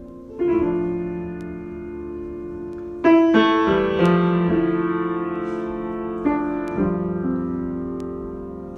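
Slow solo piano improvisation: chords struck a few seconds apart and left to ring and fade, with a short run of notes about three to four seconds in.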